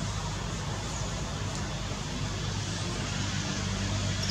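Steady outdoor background noise, an even hiss over a low, continuous hum like a distant engine, with no distinct sound from the monkeys.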